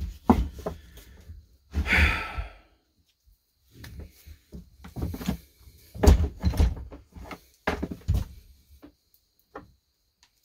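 Husqvarna 240 chainsaw handled on a wooden workbench: a string of knocks and thumps as it is turned over and set down, loudest about six and eight seconds in, with a brief scraping noise about two seconds in.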